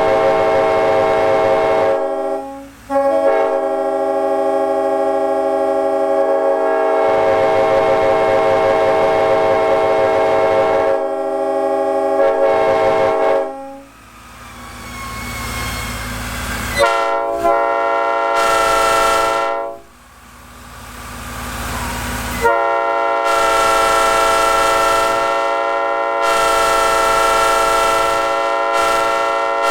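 Two five-chime train air horns blown one after the other. A Nathan K5LLB with mixed bells sounds a long chord with two short breaks and fades out about 14 seconds in. After a rush of noise, an old-cast Nathan P5 gives a short blast, then a long held chord to the end.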